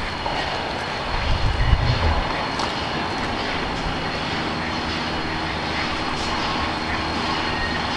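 Southern 630, a 2-8-0 steam locomotive, approaching with its passenger train in a steady rushing roar. There are low rumbling thuds in the first two seconds, and a faint steady hum comes in about halfway.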